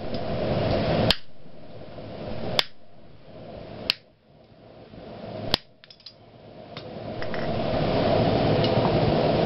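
A hand hammer strikes a glowing twisted square iron bar on an anvil four times, about one blow every second and a half, each blow ringing briefly. A few light metallic clicks follow near the middle. A steady rushing noise runs underneath, dropping away after each blow and building back, and it holds steady toward the end.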